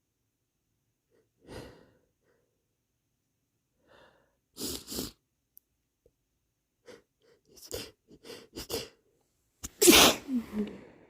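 A person sniffling a few times, then a quick run of short sniffs and breaths, then a loud sneeze near the end that is the loudest sound.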